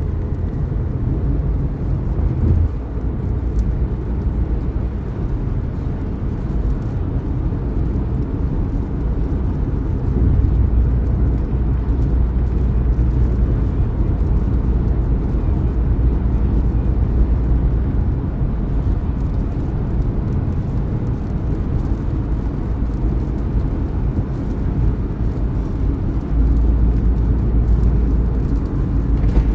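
Steady road and engine noise heard inside a car's cabin at highway speed, a low rumble that grows a little louder about a third of the way in and again near the end.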